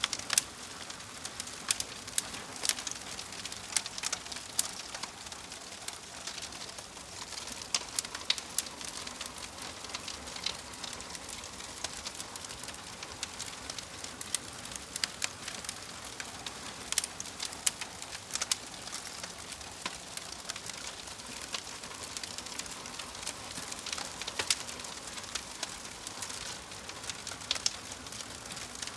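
Burning logs in a fireplace crackling, with irregular sharp pops over a steady hiss.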